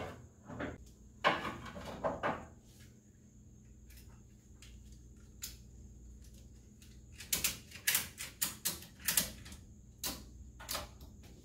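Ratchet strap being worked tight, its ratchet handle clicking and rattling in short uneven runs: a cluster in the first couple of seconds, a pause, then a longer run from about seven seconds on.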